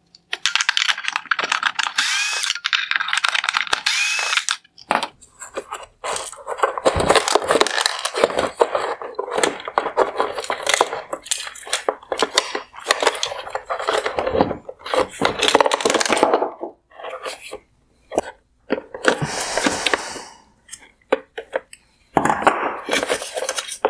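Cordless screwdriver running to back T20 Torx screws out of the plastic headlight housing, its motor whine rising and falling over the first few seconds. After that come long stretches of plastic parts clattering and rubbing as the mount is worked loose and lifted out, with a few shorter bursts of handling near the end.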